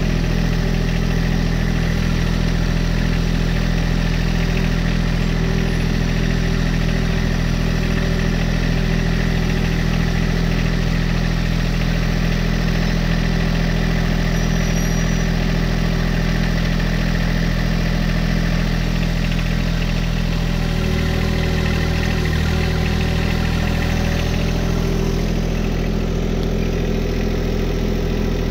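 John Deere 1025R sub-compact tractor's three-cylinder diesel engine idling steadily, with a slight change in tone about twenty seconds in.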